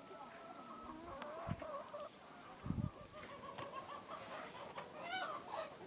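Domestic hens clucking, a run of short wavering calls one after another, with a livelier burst of calls near the end. Two brief low thuds come through about one and a half and nearly three seconds in.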